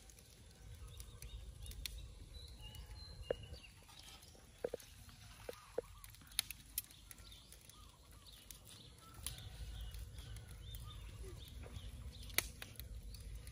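Metal skewers clicking and tapping now and then against a steel wok as pieces of vegetable are threaded onto them, with birds chirping in the background. The clicks cluster in the middle, with one sharp one near the end.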